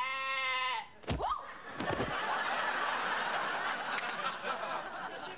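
Studio audience laughing, following a brief drawn-out shout in a woman's voice at the start.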